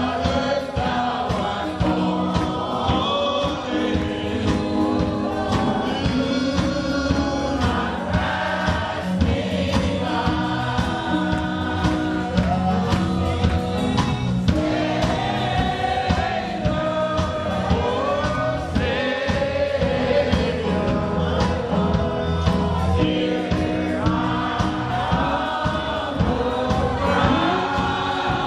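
Gospel choir singing with a band, over steady bass notes and a regular beat.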